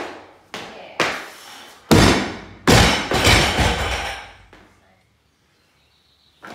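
A 150 kg barbell loaded with bumper plates dropped from overhead onto a lifting platform: a few heavy thuds as it lands and bounces, the loudest two about two and three seconds in, with the plates and bar rattling and ringing out over about two seconds.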